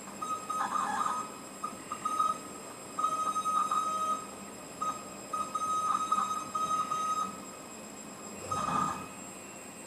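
Bulleri CNC machine's axis drives running in a series of short moves: a steady high whine that starts and stops several times, with a brief noisier burst near the end.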